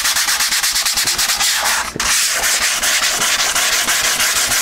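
Sandpaper folded into a hand pad, rubbed back and forth over the fiberglass-and-polyester-resin skin of a model airplane wing: rapid, even rasping strokes, levelling the final resin coat, with a brief pause about two seconds in.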